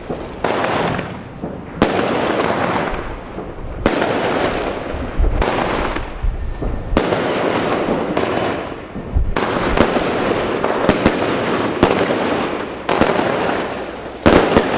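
Fireworks going off: a continuous crackling hiss punctuated by sharp bangs every second or two.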